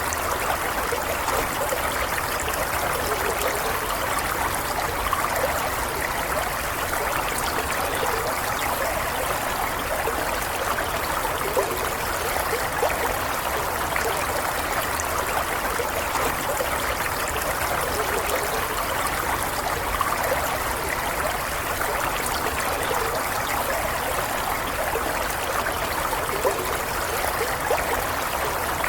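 A stream of running water with a steady trickling and gurgling.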